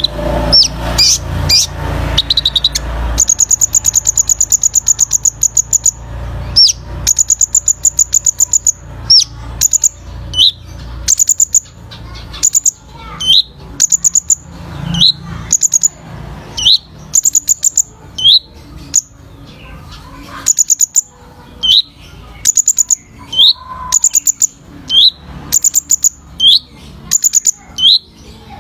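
Kolibri ninja, a small sunbird, singing its rapid 'tembakan' song: fast, high-pitched trilling bursts, at first long runs of a second or more, then short trills repeated every second or two, each followed by a brief sliding note.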